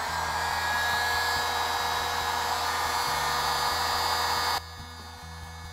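Harbor Freight heat gun running, a steady rush of blown air with a thin whine, shrinking heat-shrink tubing over a soldered lead; it cuts off suddenly about four and a half seconds in.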